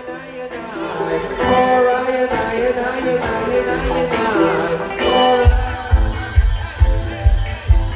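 Live reggae band music heard from among the audience: singing over light accompaniment with the bass dropped out, then bass and kick drum come back in about five and a half seconds in with a steady beat.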